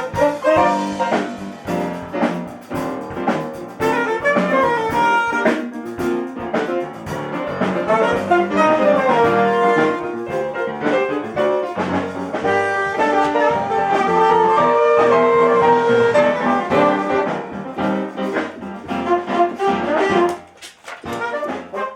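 Jazzy instrumental music played by a small band of brass, saxophone and piano, busy with many short notes; it thins out briefly near the end.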